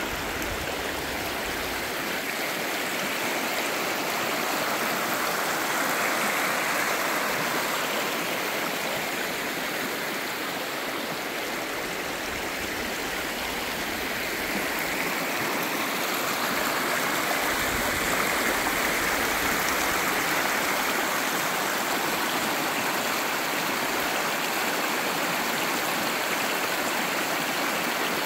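Shallow rocky stream running over stones and gravel: a steady rushing, babbling water sound that swells gently now and then.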